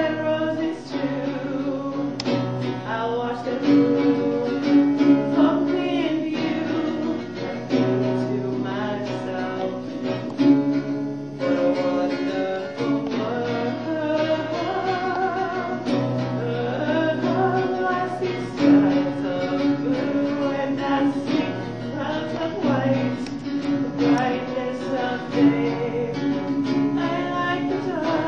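Singing accompanied by a strummed acoustic guitar, a song performed live.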